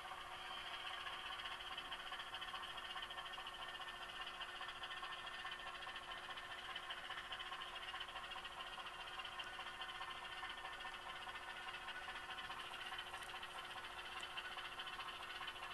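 Bowser HO scale diesel switcher's sound decoder playing a steady diesel engine sound through the model's small speaker as the locomotive pulls covered hoppers slowly along the track.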